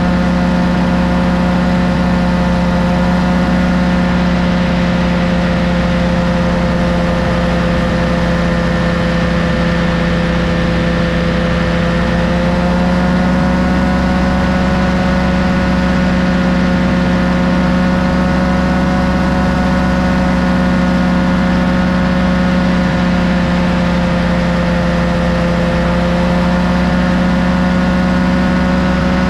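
Tandem paramotor trike's engine and pusher propeller running steadily in flight, its pitch drifting slightly up and down.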